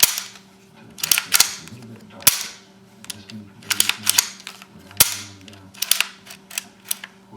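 A series of sharp, irregular clicks and snaps, about a dozen, some in quick clusters and some single.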